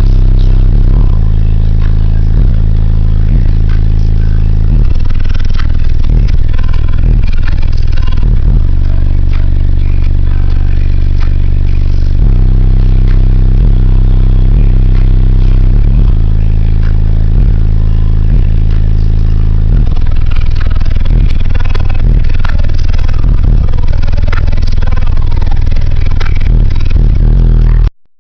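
Car audio system's 18-inch subwoofers playing bass-heavy music at very high volume, long deep bass notes shifting pitch every few seconds, with the car's panels rattling and the recording overloading. It cuts off suddenly near the end.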